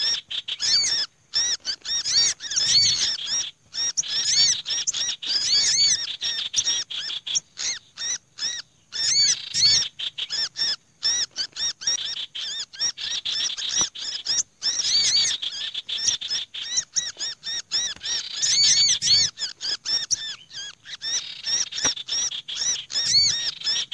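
Bird-lure recording mixing several small songbirds at once: a chattering sirtu, a noisy sogok ontong and the pinched distress calls of a black-naped monarch. The rapid, high, overlapping chirps repeat without let-up and break off in short gaps. It is a noisy 'bird caught' mix, used to draw wary small birds down to a trap.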